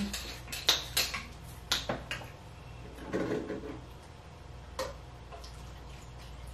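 Eating sounds at a seafood meal: a string of sharp clicks and smacks, several close together in the first two seconds and one more near five seconds in, with a brief "mm" around three seconds in.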